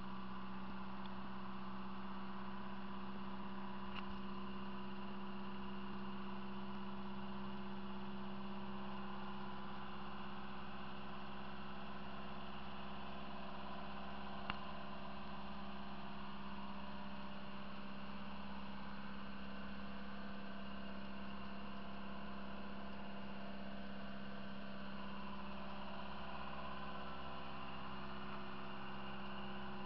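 Outrigger boat's engine running at a steady speed, a constant even drone. Two faint clicks, about four and fourteen seconds in.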